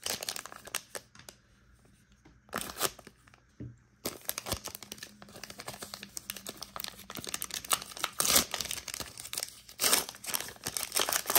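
Wrapper of a trading-card pack being torn open and crinkled by hand. A few short crackles come first, then steady crinkling from about four seconds in, with two louder tears later on.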